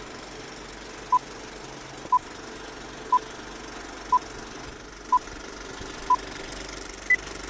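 Film-leader countdown beeps: a short steady beep once a second, six times, then a single higher-pitched beep near the end, over a steady faint hiss.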